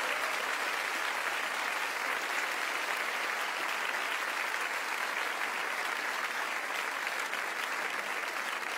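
Studio audience applauding: many people clapping steadily throughout.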